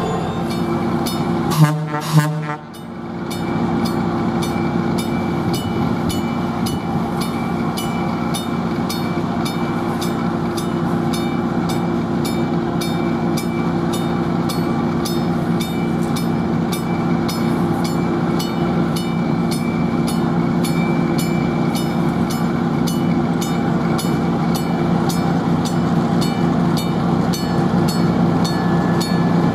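Diesel locomotive approaching at the head of a bilevel commuter train, its engine running with a steady drone. Two sharp clicks about two seconds in, and a faint regular ticking about twice a second over the drone.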